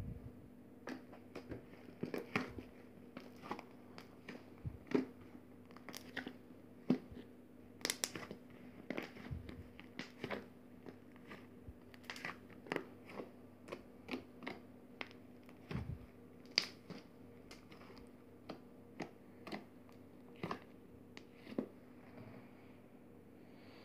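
Puffy slime being squeezed and worked, giving irregular wet clicks, pops and crackles, a few to several a second, over a faint steady hum.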